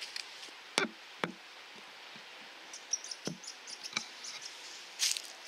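Four sharp knocks, irregularly spaced, with faint high chirps in between and a brief rustle near the end.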